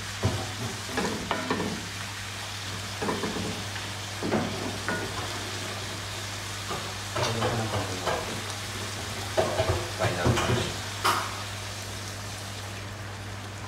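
A wooden spatula stirs and scrapes chicken livers, gizzards and sausage in a cast-iron skillet, with irregular knocks against the pan over a steady sizzle.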